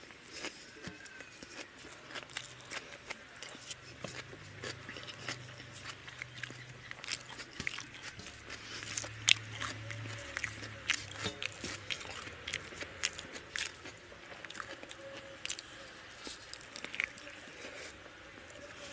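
Close-up eating sounds: wet chewing and lip smacks as rice and chicken curry are eaten by hand, with fingers squishing and mixing rice on a steel plate. Irregular sharp clicks and smacks, the loudest about nine seconds in.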